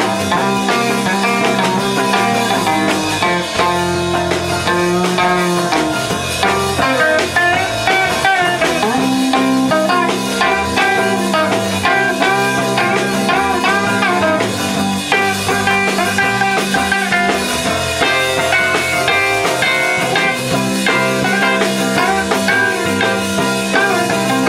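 A live rock and roll band plays an instrumental passage on electric guitars, violin bass and drum kit, with a lead guitar line bending its notes over the rhythm.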